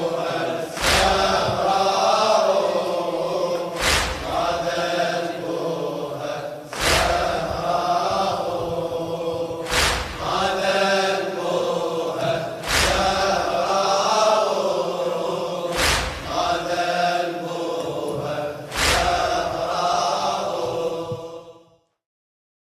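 Latmiya mourning chant: voices drawn out in a slow lament, with a heavy thump about every three seconds, seven in all. The sound cuts off abruptly near the end.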